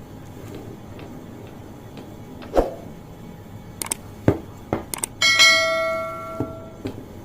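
Tableware and utensils being handled: a few sharp knocks and clicks, then one clink that rings with a clear pitch and fades over about a second and a half.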